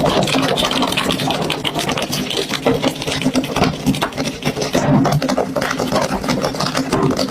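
Slime being squished and worked by hand: a continuous run of sticky clicks and pops over a steady low hum.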